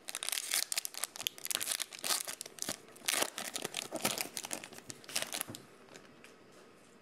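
Foil wrapper of a Donruss football card pack crinkling loudly as gloved hands tear it open, dying away about five and a half seconds in.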